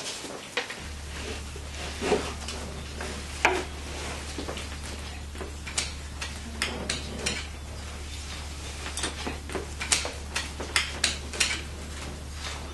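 Irregular light clicks and knocks of things being handled, with a steady low hum that comes in about a second in.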